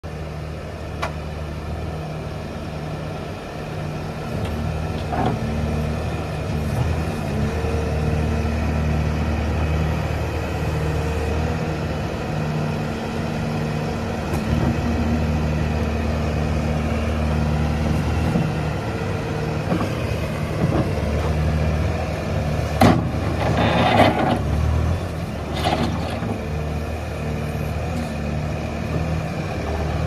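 2020 Bobcat S570 skid steer's diesel engine running steadily, its note swelling and easing as the hydraulics raise and tilt the loader bucket. Sharp clanks and a short noisy burst come about three quarters of the way through.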